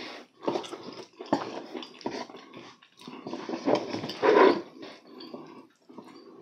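Close-miked eating: wet chewing and lip-smacking of a mouthful of food in irregular bursts, loudest a little after four seconds.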